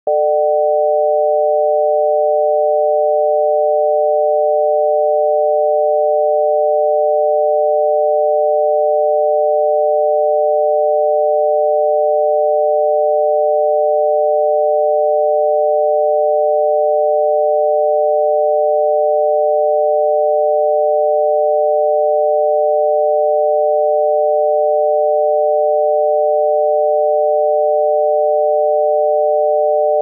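Obsolete US telephone dial tone: a 600 Hz tone amplitude-modulated by 160 Hz, sounding steady and unbroken. It is the exchange's signal that it is ready to receive dialled digits.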